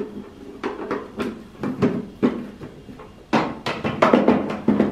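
The emptied plastic water tank of a home dehumidifier being handled and slid back into its housing: a run of short plastic clicks and knocks, the loudest about four seconds in.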